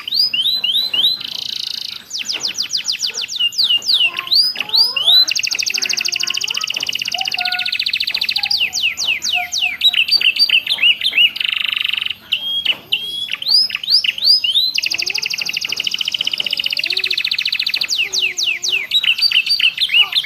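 Canary singing a fast, continuous song: runs of quick down-slurred chirps alternating with several long, buzzing trills, its song filled with prinia (ciblek and prenjak) phrases.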